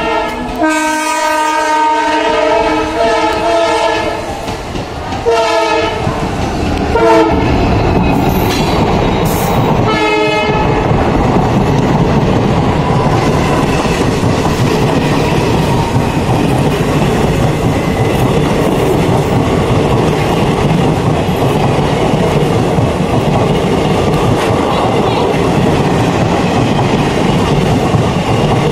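WDG4 diesel locomotive horn sounding a long chord, then three short blasts, as the express runs through without stopping. The passenger coaches then rush past at speed with a steady clatter of wheels over the rail joints.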